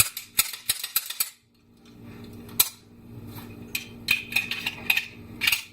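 Sharp metallic clicks and clacks of a Ruger SR1911 Commander pistol's steel parts being handled as it is reassembled. A quick run of clicks comes at the start, then a short pause, a single louder click, and further scattered clicks near the end.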